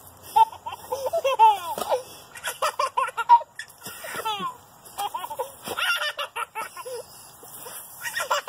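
A toddler laughing in many short, high-pitched giggles.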